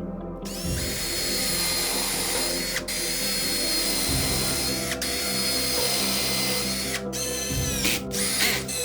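An electric power tool's motor, drill-like, spins up with a rising whine and runs steadily. Near the end it stops and spins up again two or three times in quick succession.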